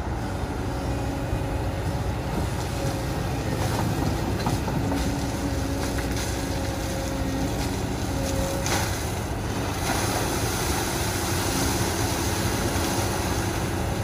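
Kobelco hydraulic excavator's diesel engine running steadily under load as the machine digs and lifts a bucket of sand.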